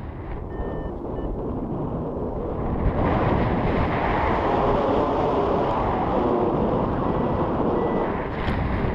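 Steady rushing noise, like wind or surf, that swells over the first three seconds and then holds steady.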